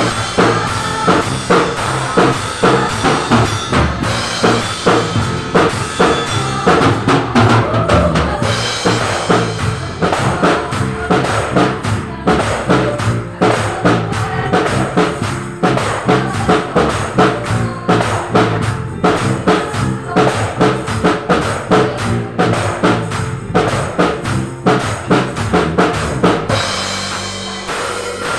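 Acoustic drum kit played in a steady groove: bass drum, snare and cymbals, with the loudest hits coming about twice a second. The beat thins out near the end.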